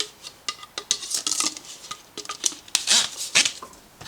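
Small metal workshop tools, among them diamond grinder-wheel dressers, clinking and rattling as they are picked through by hand in a box: irregular clicks and clatters, some with a brief metallic ring.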